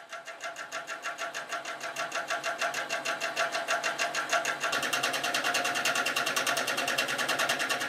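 Industrial cylinder-bed sewing machine running, stitching fabric with a fast, even mechanical rhythm. It grows louder over the first couple of seconds, then runs steadily.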